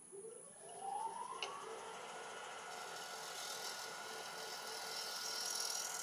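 Wood lathe starting up, its motor whine rising for about a second and a half and then holding steady. From about three seconds in, a hiss joins it: a 1-inch scraper cutting the outside of a damson bowl.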